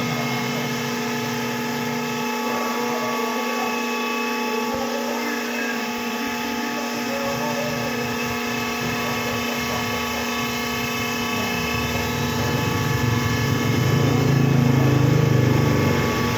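A shop machine running steadily, a constant hum with several fixed whining tones; a deeper rumble swells in near the end.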